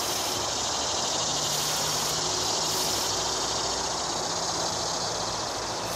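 Steady, high-pitched chorus of insects buzzing in overgrown summer grass and brush.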